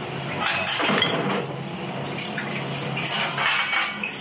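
Kitchen clatter: dishes and utensils clinking, loudest about a second in and again around three seconds in, over the steady low hum of kitchen equipment.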